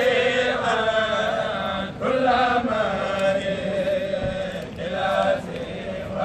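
Voices chanting Arabic devotional verses of the Mouride khassida in long sung phrases, each a couple of seconds long with short breaks between them.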